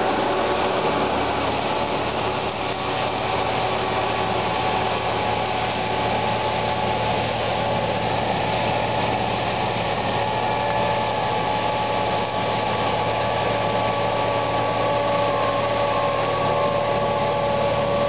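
Gyro-Trac GT-25XP tracked mulcher running under load, its engine and spinning front mulching head shredding manzanita brush. The sound is a steady, loud machine noise with a constant high whine running through it.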